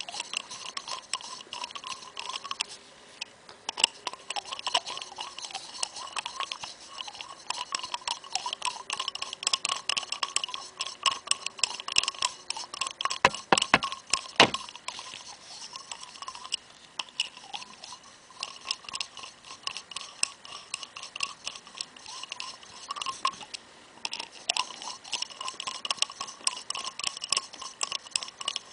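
Rapid, steady clicking of a small hand ratchet turning the hex bolts down into a steering damper's cover, with a few sharper clicks about halfway through.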